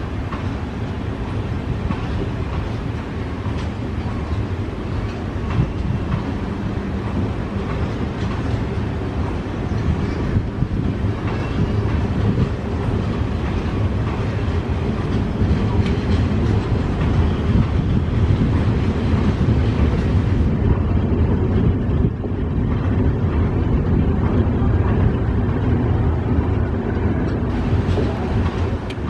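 Diesel-hauled train running, its wheels clattering over rail joints in a quick, uneven stream of clicks over a steady low engine drone.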